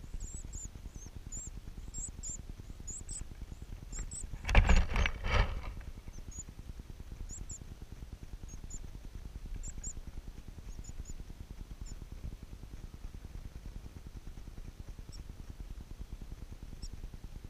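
Thin, high-pitched begging cheeps from nestlings in a rufous-collared sparrow nest, one of them a shiny cowbird chick. The cheeps come in quick runs for the first few seconds, then grow sparse. About four and a half seconds in, a brief burst of two or three loud knocks is the loudest sound.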